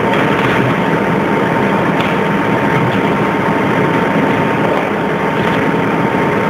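DC electric arc furnace running with its arc burning. It makes a loud, steady rushing noise with a thin steady tone above it.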